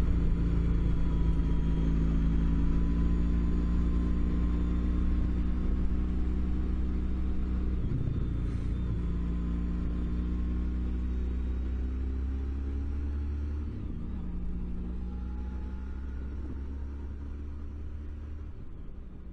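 Suzuki Boulevard C50T's V-twin engine running while the motorcycle is ridden. Its steady note breaks briefly twice, about eight and fourteen seconds in, and the sound slowly fades.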